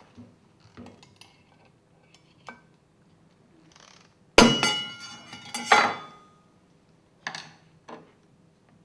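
Perforated stainless-steel strainer of a Grundfos Unilift KP submersible pump being pried off with a screwdriver: a few light clicks, then two loud metallic clangs with ringing midway as the strainer comes free, and two lighter clinks near the end.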